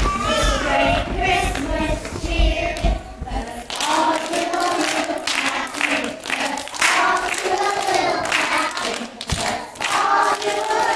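A group of young children singing a Christmas song together, with hand claps keeping time from about four seconds in.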